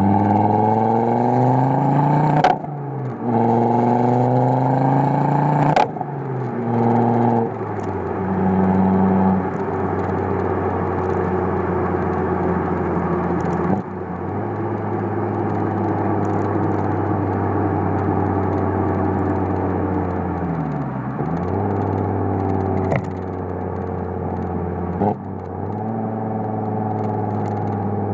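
Stage 1 tuned Ford Focus RS exhaust under hard acceleration. The engine note rises through two gears in the first six seconds, with a sharp crack at each upshift. It then runs at steadier revs, falling and picking up again a few times.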